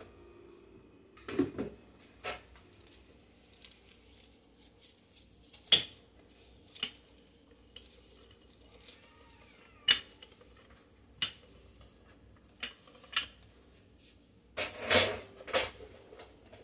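Kitchen utensils and bowls being handled on a countertop: irregular clinks and knocks, with a louder burst of clatter near the end.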